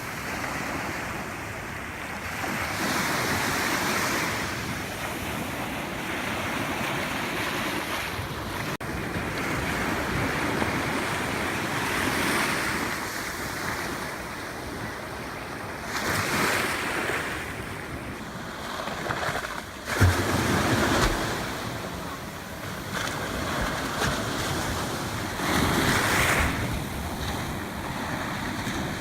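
Sea surf washing onto a sandy beach, swelling and fading every few seconds, with wind buffeting the microphone; a sudden strong gust hits the microphone about two-thirds of the way through.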